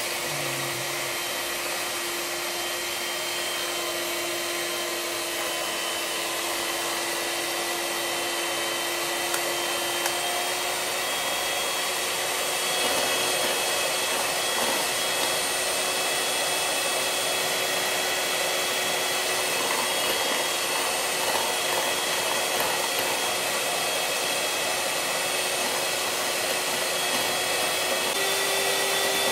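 Small handheld electric whisk running steadily, its whisk spinning in a mug of instant coffee, sugar and hot water, whipping it into foam. The motor's hum shifts in pitch a few times and gets a little louder about twelve seconds in.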